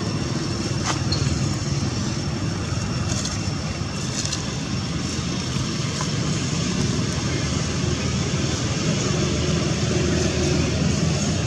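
Steady low drone of a running vehicle engine under a constant hiss.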